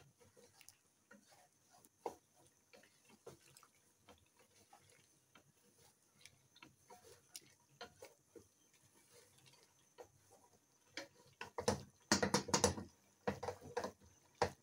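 Wooden spatula scraping and knocking against the metal pressure cooker as mutton in masala is stir-fried (bhunai). Scattered light clicks, growing louder and more frequent in the last few seconds.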